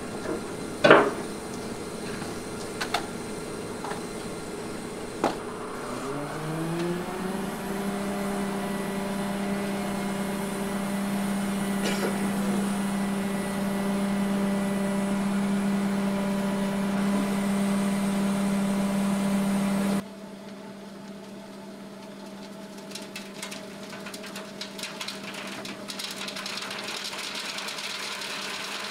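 A few sharp metal knocks from the concrete mixer truck's chute sections, then the truck's diesel engine revs up about six seconds in and holds at high revs to drive the drum for pouring. Near the end the sound drops suddenly to a quieter steady engine hum with faint crackling.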